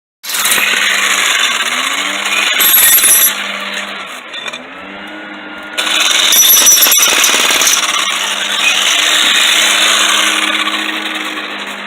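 Electric demolition hammer breaking up the concrete around a fence post, running loud and steady, easing off for a few seconds in the middle, then back at full power.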